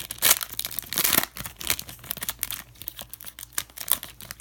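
Foil trading-card pack being torn open and crinkled by hand, an irregular run of crackling rustles that are loudest in the first second or so and thin out toward the end.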